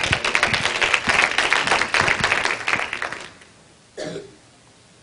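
Audience applauding, the clapping dying away a little over three seconds in. A single short noise about four seconds in.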